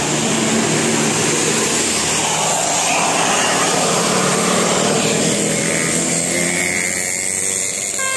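A bus driving past: loud, steady engine and road noise.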